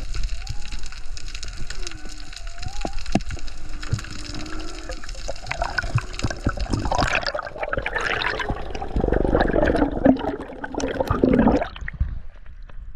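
Water rushing and bubbling around a diving camera, with scattered sharp clicks, heard while spearfishing. About seven seconds in it swells into a loud, dense rush of bubbles and moving water that cuts off near the end.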